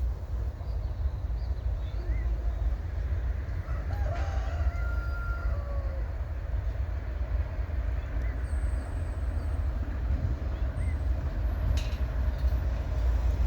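A rooster crowing once, about four seconds in, over a steady low rumble.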